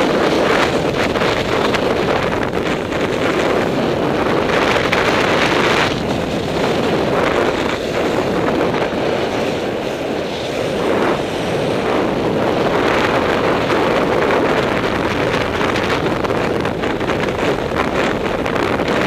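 Steady wind rushing over a skier's camera microphone while skiing downhill, mixed with the skis running over the snow, with a slight easing about ten seconds in.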